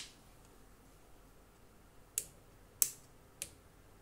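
Sharp clicks of hard plastic parts as hands reposition a 1/100 Deathscythe Hell Gundam model kit: one click at the start, then three more about half a second apart in the second half.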